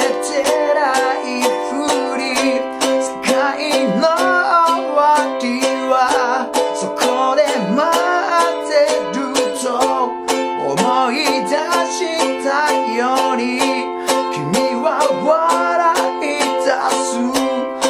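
Ukulele strummed in a steady rhythm through F, G7, C and E7 chords while a man sings the melody in Japanese.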